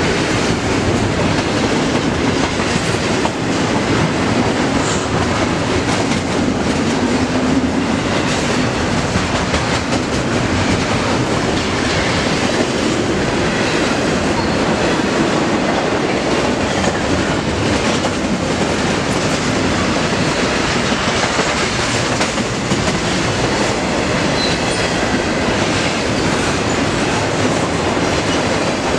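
Double-stack intermodal container freight train rolling past close by: a steady, loud rolling noise of steel wheels on rail, with the faint clatter of the cars going by.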